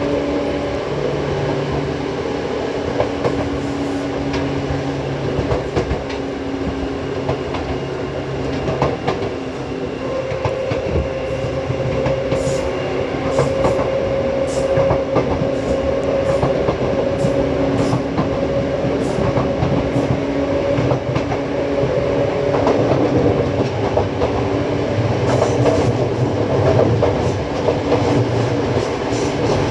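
Seibu 2000-series electric train heard from inside the car, running at a steady speed: a steady hum of traction motors and gearing over the rumble of wheels on rail, with wheels clicking over rail joints now and then.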